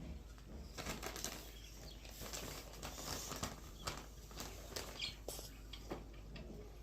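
Eating sounds from a chocolate ice cream cone: irregular short crunches and wet mouth clicks as the wafer cone and ice cream are bitten and chewed.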